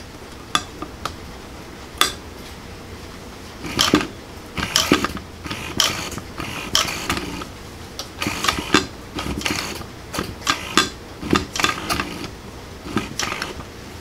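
Small metal parts and hand tools being handled and set down on a workbench: a few single clicks at first, then irregular clinks and rattles for most of the rest.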